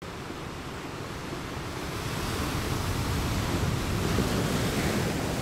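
Sea surf and wind: a steady rushing wash that builds to its loudest about four seconds in and eases near the end.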